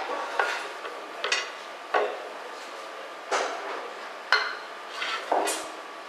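Workbench handling clatter: a large PVC pipe fitting and a tin of cleaner being wiped with a cloth, picked up and set down, giving about seven sharp knocks and scrapes, each with a short ring.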